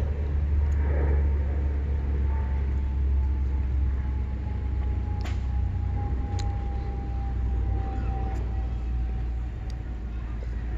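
Low, steady rumble of a distant engine passing by, with a thin whine that slowly falls in pitch.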